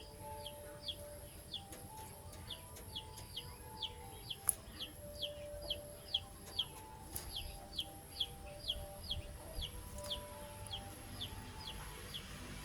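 A bird calling over and over in a steady series of short falling chirps, about three a second, over soft background music.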